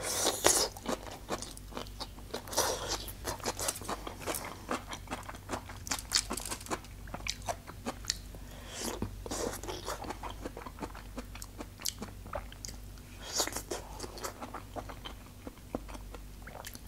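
Close-up biting and chewing of grilled green peppers pulled off bamboo skewers: a run of short, wet crunches and clicks, with a louder bite near the start and a few more through the chewing.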